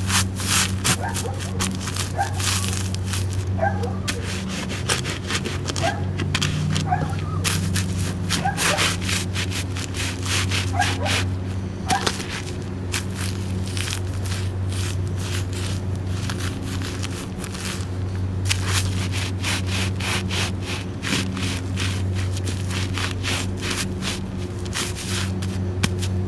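Crackers crunching and crackling under leather dress boots as they stomp, crush and grind a small cracker stack, many sharp crackles throughout, over a steady low hum.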